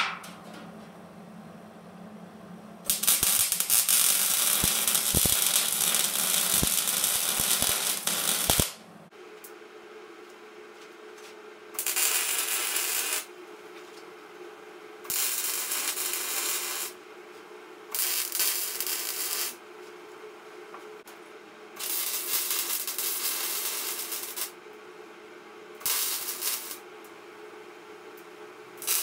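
Welder arcing in bursts of crackling: one long weld of about six seconds, then five shorter ones of one to two seconds each, starting and stopping abruptly.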